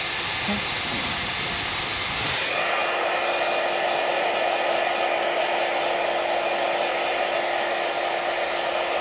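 Handheld iTeraCare terahertz wand running, with a steady hair-dryer-like whir and a faint steady hum from its internal fan. The whir shifts in tone about two and a half seconds in.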